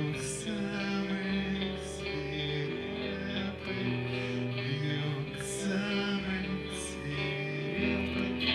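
Live rock band playing a slow passage: a bass line stepping from note to note about once a second under held chords, with a few light cymbal strokes.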